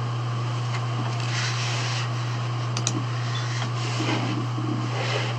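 Room tone: a steady low hum under a faint hiss, with a few soft clicks.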